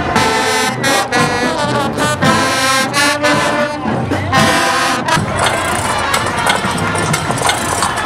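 Parade marching band playing loud brass with sharp drum hits. About five seconds in the brass stops and a mix of crowd voices and street noise takes over.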